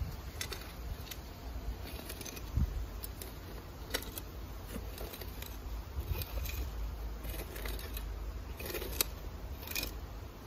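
Small steel shovel scraping and knocking in loose, stony soil, tamping down freshly backfilled earth in irregular strokes, over a low rumble.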